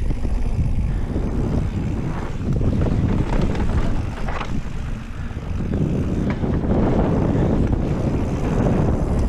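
Steady wind noise on the action-camera microphone, mixed with knobby tyres rolling over a dry dirt trail on a downhill run on a Scott Ransom mountain bike. Now and then the bike gives a short click or rattle.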